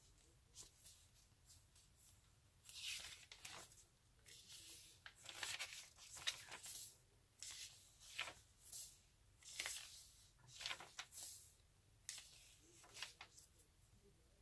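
Faint paper sounds of a bound journal's pages being turned and smoothed flat by hand: a string of short, soft swishes about once a second.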